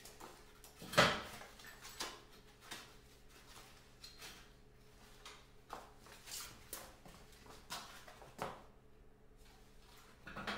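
Scattered clunks and knocks of steel parts being handled while axles and a frame are set in a welding jig, the loudest about a second in, over a faint steady hum.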